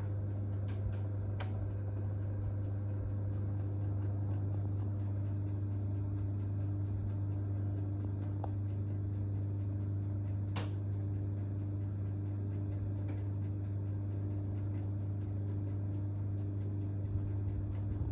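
Household appliance running with a steady low hum and a few faint ticks, without the intermittent grinding or rumbling it sometimes makes.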